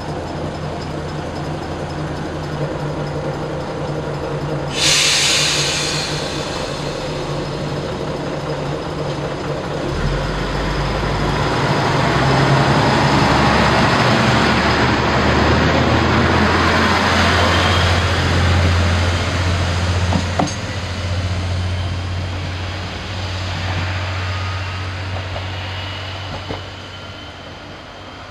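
NT100 diesel railcar idling, with a sharp burst of compressed-air hiss about five seconds in. From about ten seconds in, the engine revs up into a louder, deeper rumble as the railcar pulls away, then eases off.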